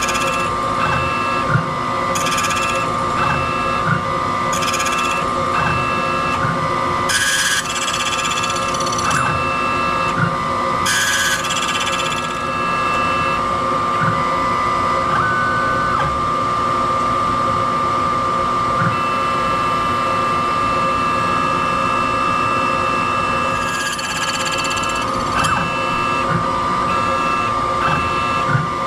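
Ilco Idea electronic key machine running its cutting sequence on a key blank: a steady motor whine with a regular pulsing pattern about once a second, broken three times by short, hissy bursts of cutting.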